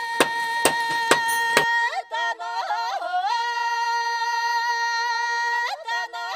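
Machete blade chopping into green bamboo, about two strokes a second, under a held sung note. About a second and a half in the chopping stops and a solo voice sings on alone: a folk melody of sliding steps between long, evenly held notes.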